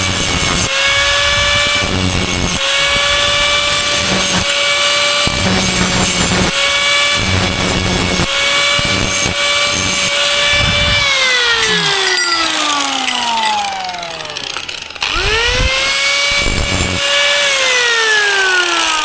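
Angle grinder running at full speed on metal, its whine repeatedly broken by the rasp of the disc working the steel. About 11 seconds in it is released and slowly winds down, then it is spun up again briefly and let go to wind down once more near the end.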